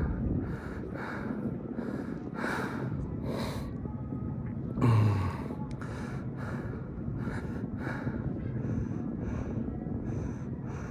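A mountain biker breathing hard in quick, regular breaths over a steady bed of wind and trail noise, with one brief louder sound about five seconds in.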